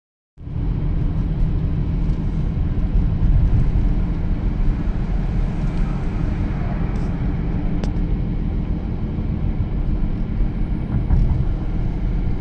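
Steady low rumble of a car driving, heard from inside the cabin: tyre and engine noise on the road. It starts abruptly a moment in and holds steady.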